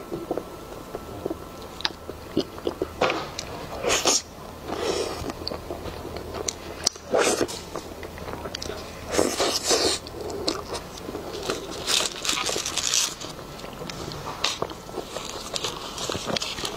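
Close-miked biting and chewing of soft snow-skin mochi (xue mei niang) with a gooey filling, in irregular bursts of mouth noise.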